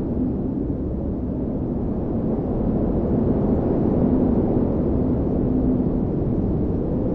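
Blizzard wind blowing steadily as a deep, dense rush, with a faint low howling tone that comes and goes.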